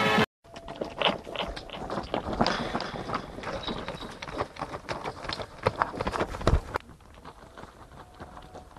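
Footsteps of several people walking on loose stones and gravel, an irregular run of scrapes and clicks of rock under shoes. The steps are louder at first and grow fainter about two-thirds of the way through.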